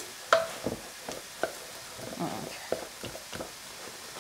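A spoon stirring a soft, lumpy egg-and-flour dumpling dough in a bowl, with scattered light knocks and clicks of the spoon against the bowl.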